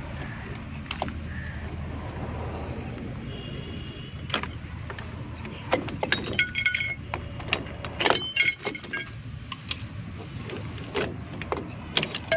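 Metal clicks and clinks from a rear drum brake's return springs and brake shoes being pried and unhooked with pliers. Two bursts of ringing metal clinking come about six and eight seconds in, over a steady low hum.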